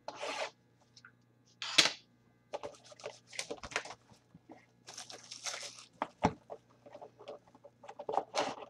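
Crinkling and rustling of packaging with many small clicks and taps as a sealed box of trading cards is opened, with one sharp snap about two seconds in.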